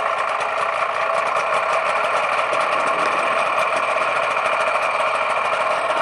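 Rotax 582 two-stroke twin aircraft engine idling steadily, just after a key start. Its centrifugal clutch is disengaged below 2400 rpm, so the engine spins while the propeller stays still.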